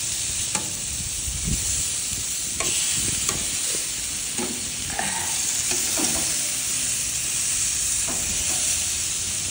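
Pork sizzling steadily on a gas grill's grates, with a few short clicks of metal tongs handling the pieces.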